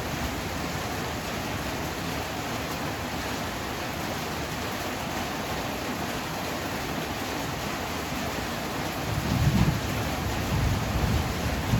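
Heavy rain pouring steadily. About nine seconds in, a low rumble of thunder swells up and rolls for a couple of seconds.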